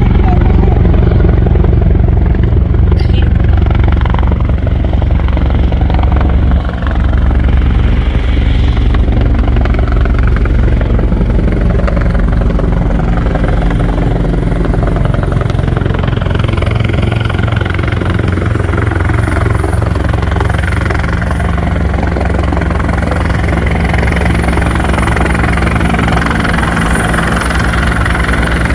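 Bell 412EP helicopter running: its rotor gives a steady, loud low beat, and a thin high turbine whine sits over it and grows a little stronger in the second half.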